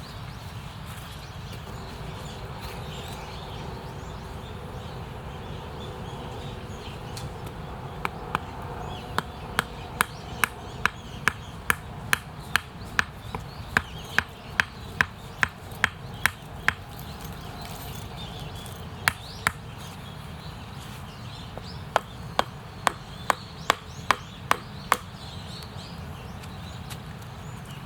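Small wood being chopped: runs of sharp knocks about two to three a second, with pauses between the runs, over a steady low rumble.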